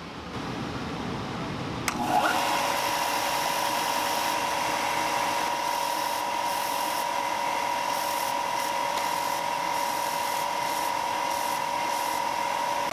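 Benchtop belt sander running, starting with a click about two seconds in and then holding a steady whine over a hiss. A small wooden lure blank is pressed against the moving belt, sanding it to shape.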